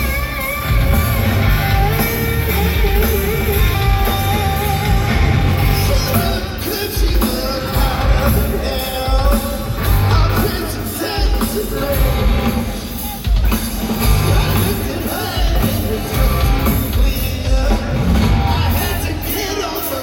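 Rock band playing live: electric guitars and drums with a male lead singer.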